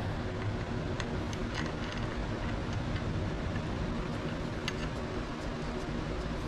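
Steady low mechanical hum in the background, with a few light metallic clicks and ticks from bolts, nuts and tools being handled.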